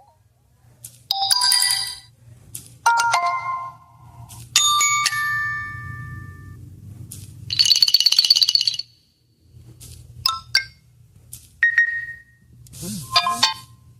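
Samsung Galaxy S25 Ultra notification tones played one after another: about seven different short electronic chimes and jingles, each a second or less with brief gaps, one of them a quick pulsing trill. A faint low hum runs underneath.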